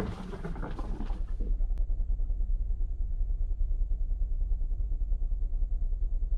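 About a second and a half of rustling, hissy noise, then an abrupt change to a steady low rumble with a fast, even throb, like an engine running.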